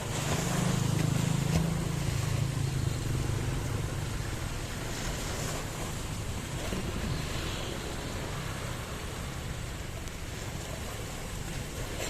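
Steady rushing of wind and sea water with a low rumble underneath, loudest in the first couple of seconds.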